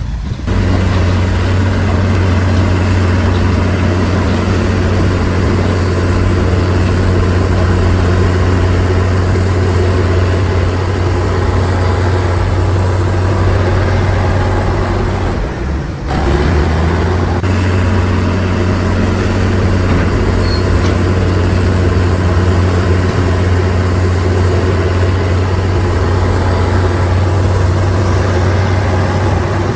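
Heavy diesel engine of road-construction machinery running at a steady low drone, with a brief break about halfway through.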